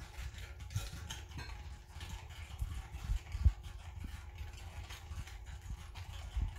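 Hand whisk beating eggs in a ceramic bowl: rapid, uneven tapping and scraping of the whisk wires against the bowl, with a sharper knock about halfway through.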